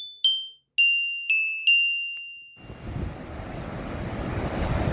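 Several struck chime notes like a glockenspiel, each ringing and fading, end about halfway through. A steady rush of falling water from a waterfall then takes over and grows a little louder.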